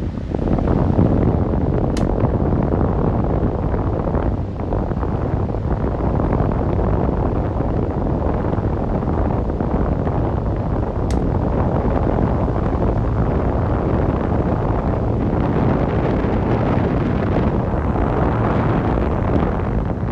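Electric fan running steadily: an even, unbroken rush of moving air, heaviest in the low end.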